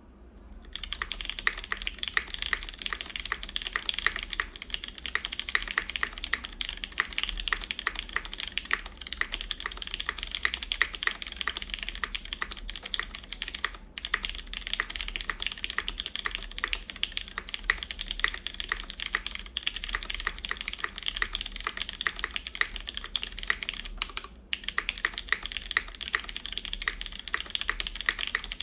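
Fast, continuous typing on a CannonKeys Blaine v2 SE mechanical keyboard in its single-side gasket mount, with lubed Cherry MX Brown tactile switches, a full aluminum plate and GMK keycaps. The typing starts about a second in and pauses briefly twice.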